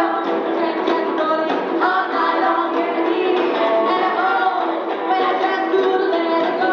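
Live rock'n'roll band playing, with women singing.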